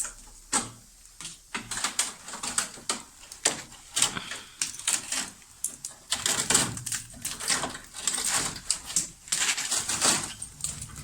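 Rapid, irregular clicking and crackling in uneven runs, sparse at first and denser from about halfway through.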